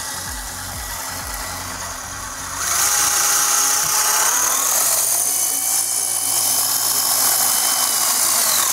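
Brushed electric motor and gear drivetrain of a custom steel 8x8 RC truck running with the wheels spinning free on the bench, a steady motor and gear whine. About two and a half seconds in it gets louder and the whine climbs as the throttle is opened, then it holds steady and eases off near the end.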